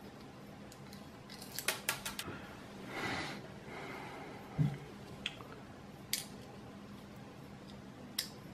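Light clicks and taps of hands handling a metal PCIe card bracket and a small screw. A cluster of clicks comes about a second and a half in, a short rustle around three seconds, a soft bump halfway, and single clicks later.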